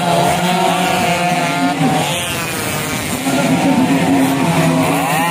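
Two-stroke underbone motorcycle engines revving hard, more than one at once, their pitch climbing and dropping repeatedly as they rev and shift.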